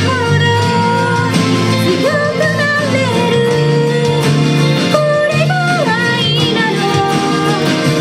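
A woman singing a melody over a strummed Gibson J-45 acoustic guitar.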